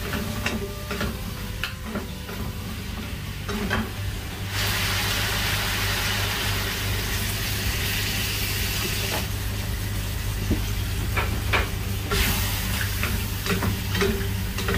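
Vegetables stir-frying in a hot non-stick frying pan on a gas stove, wooden spatulas clicking and scraping against the pan. About four and a half seconds in, water poured into the hot pan sets off a sudden loud sizzling hiss that lasts about five seconds and then dies down, and the spatula strokes take over again near the end.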